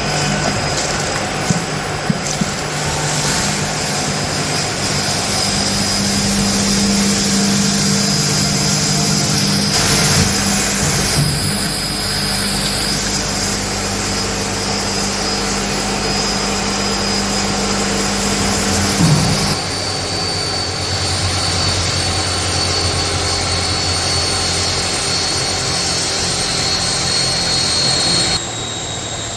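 Urschel Model DM380 mill running under load as it mills soaked glutinous rice: a loud, steady mechanical whir with a high whine. Its tone shifts about two-thirds of the way through, and it gets a little quieter near the end.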